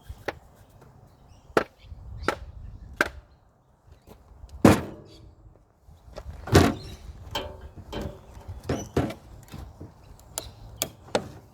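Hammer blows on the seized motor of a Ryobi electric chainsaw, about a dozen irregular sharp strikes; the two heaviest, about a third and halfway through, ring briefly. The part is seized and does not come free.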